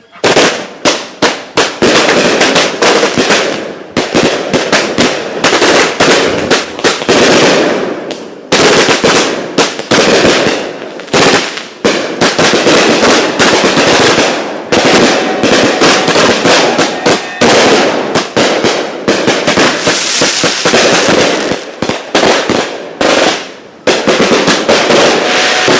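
Fireworks going off in a loud, rapid barrage of bangs and crackles that starts suddenly and keeps up without a break.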